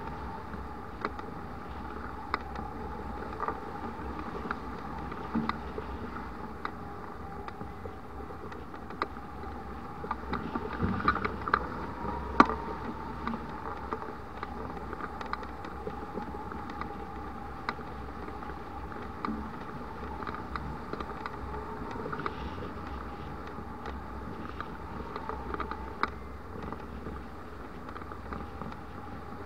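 Hang glider in flight: a steady rush of airflow past the wing-mounted camera, with scattered small clicks and rattles from the glider. A faint steady tone runs underneath, and a flurry of louder knocks comes about ten seconds in, ending in one sharp click.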